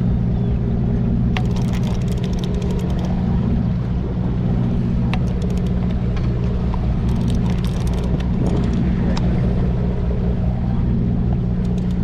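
Fishing charter boat's engine running with a steady low drone, with a few sharp clicks and knocks scattered over it.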